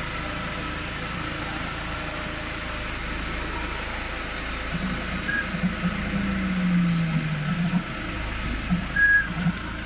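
AKG6090 CNC router running under test: a steady machine hum with thin high whining tones from the spindle and drives. From about halfway, a lower motor tone wavers and slides slightly down for a few seconds as an axis moves.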